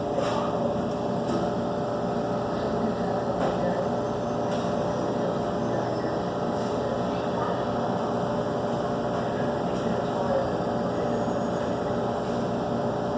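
Steady humming background noise with a few faint clicks.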